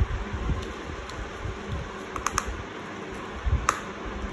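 A few light clicks and taps of small laptop parts being handled, over a steady background hiss.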